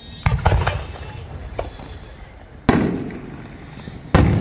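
Aerial fireworks shells bursting: a quick cluster of sharp cracks about a quarter second in, then two loud booms about a second and a half apart, each trailing off in echo.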